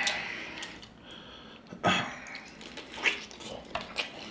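Wet squelching and dripping as a sauce-soaked lobster tail is handled in gloved hands and dipped into a bowl of sauce. There is a noisy burst at the start, another about two seconds in, and a few light clicks near the end.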